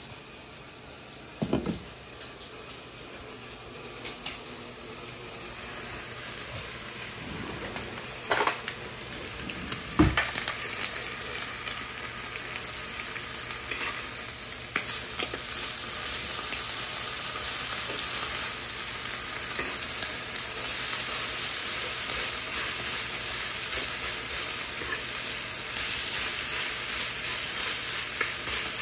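Turkey bacon strips and sausage patties sizzling on an electric griddle. The sizzle builds about halfway through and stays steady after that. A few sharp knocks come earlier.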